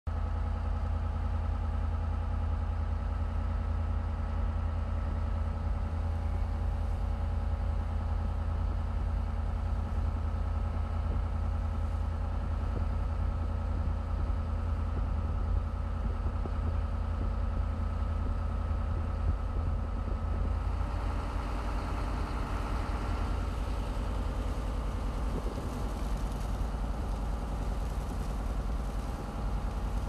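A boat's engine running steadily with a deep rumble and a steady hum, over the rush of water along the hull. About two-thirds of the way in, the hiss of wind and spray grows louder.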